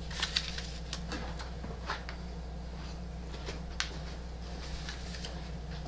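Scattered light taps and rustles of appliqué pieces being handled and laid out on a tabletop light box, over a steady low hum.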